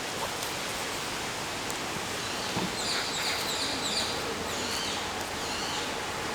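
Steady outdoor background hiss. About three seconds in, a small bird chirps a quick series of short, high notes for a couple of seconds. A few faint clicks are also heard.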